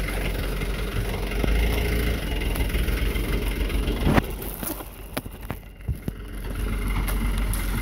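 A truck's engine running steadily with a low rumble. There is a sharp knock about four seconds in, then a quieter stretch with scattered clicks.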